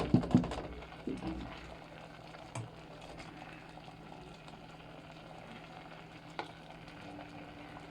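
Faint bubbling of a pot of rice pudding simmering, over a steady low hum, with two light clicks.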